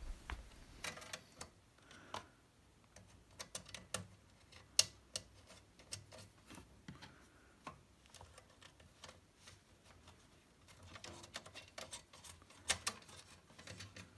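Light, irregular metal clicks and taps as the perforated sheet-metal rear plate is fitted against an amplifier's steel chassis. The sharpest click comes about five seconds in, and a quick cluster follows near the end.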